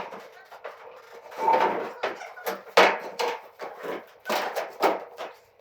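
A run of irregular knocks and clunks with short scraping noises, as of hard objects being handled and set down.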